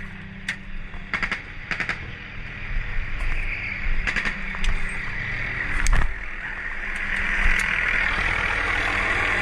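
Steady engine hum with scattered sharp snaps and clicks of airsoft gunfire and gear handling, one louder snap about six seconds in; a hissing noise builds over the last few seconds.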